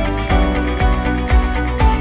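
Background music with a steady beat, a low drum hit about twice a second under sustained pitched notes.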